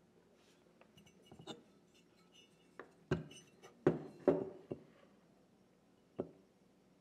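Clinks and knocks of a cast-iron Stanley No. 3 bench plane body being handled and set down on a wooden workbench: a scattered run of sharp metallic knocks, loudest from about three to four and a half seconds in, with a last one near the end.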